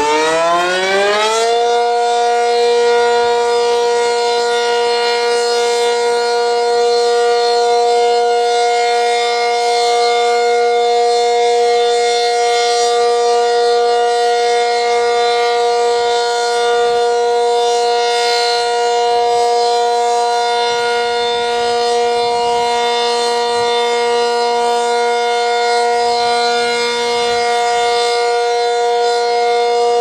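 ACA Cyclone 125 outdoor tornado warning siren sounding its steady alert signal: its pitch is still rising as it winds up, levels off about a second and a half in, then holds one loud, steady tone.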